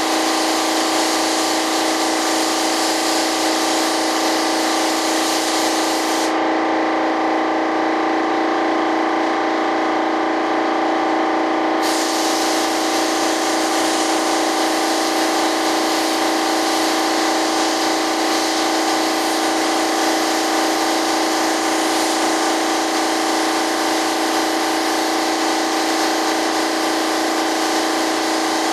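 Gravity-feed air spray gun hissing as it sprays primer, the hiss stopping for about six seconds around six seconds in and then resuming. Beneath it runs a steady humming drone.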